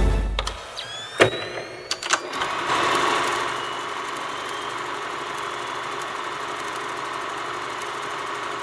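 Vintage film projector starting up: a few sharp clicks, then a steady mechanical whirr of the film running.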